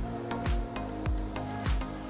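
Background music with a steady beat: a low drum thump about every 0.6 seconds under held synth-like notes.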